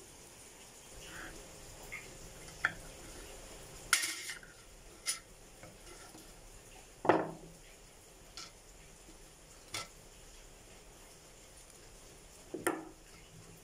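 A steel screwdriver clinking and scraping against a thin embossed brass plate as it is pried off its wooden backing: about seven sharp metallic clinks at irregular intervals, the loudest about seven seconds in.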